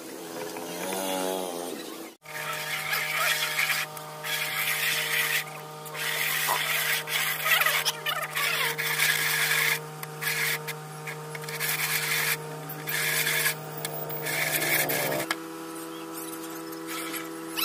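A pencil on a ruler-compass scratching across black-painted plywood while scribing circles, in rough strokes of a second or two with short breaks, over a steady hum.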